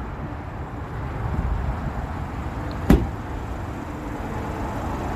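A storage unit's metal roll-up door being worked open, with one sharp clack about three seconds in over a steady low rumble.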